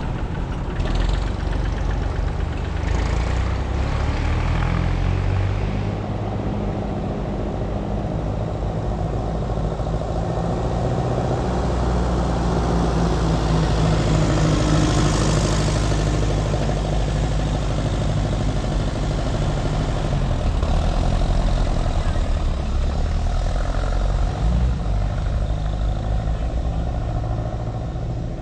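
Vintage tractor engines running, a steady low drone whose engine note shifts now and then.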